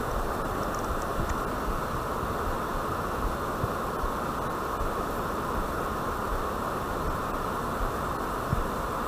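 Steady rushing noise of river water, with a low rumble of wind on the microphone.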